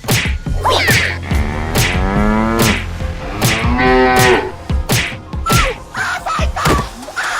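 Cattle mooing: two long, low moos that bend in pitch, over a run of sharp hits.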